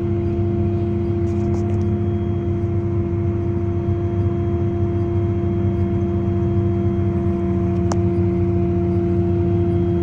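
Tractor and Dion pull-type forage harvester running with a steady drone and a high, even hum while the hydraulics lift the high-dump wagon to unload. A single light click about eight seconds in.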